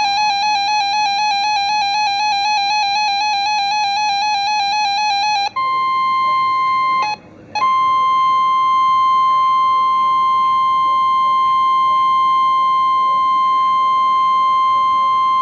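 Rapidly warbling electronic alarm beeps for about five seconds, then NOAA Weather Radio's steady 1050 Hz warning alarm tone, broken by a half-second dropout about seven seconds in. The tone signals that a warning broadcast, here a special marine warning, is about to follow.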